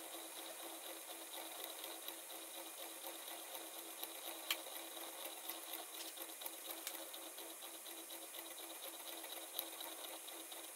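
CNC milling machine's spindle driving a spiral end mill through veneered particleboard: a steady whir with a constant hum and a fine crackle of cutting, with a sharp click about four and a half seconds in.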